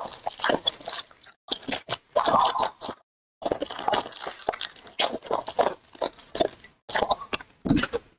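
A foil trading-card pack wrapper crinkling and tearing as it is ripped open by hand, with the cards inside rustling as they are pulled out. The sound is an irregular crackle that cuts out briefly about three seconds in.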